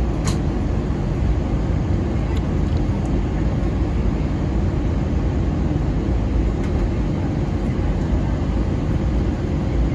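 Steady cabin noise of an Airbus A320 in flight, heard from a window seat beside the wing: the rumble of its CFM56-5B turbofan engines mixed with airflow, with a faint steady tone running through it. There is a brief click just after the start.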